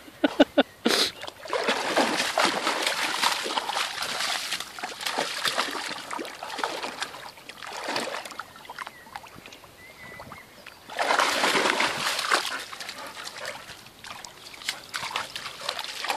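A dog wading and splashing through shallow lake water, in uneven rushes of sloshing, with the loudest splashing about eleven seconds in.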